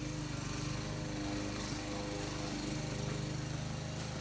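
A small motor-driven machine running steadily, a low hum with a fast, even pulse, likely the air supply for blowing out the fuel tank.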